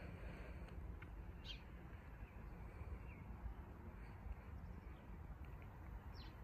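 Faint outdoor ambience with two short high bird chirps, one about a second and a half in and another near the end, over a low, uneven rumble.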